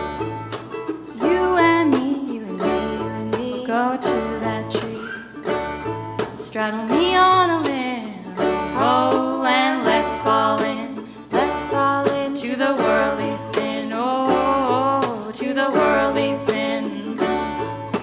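Live acoustic string-band music: voices singing over strummed plucked strings like a banjo, with a steady rhythmic bass beat.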